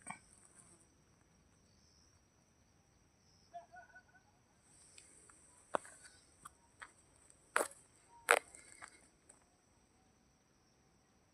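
Steady high-pitched drone of insects such as crickets, with a few faint short chirps about three and a half seconds in. Several sharp clicks and knocks stand out over it, the loudest about eight seconds in.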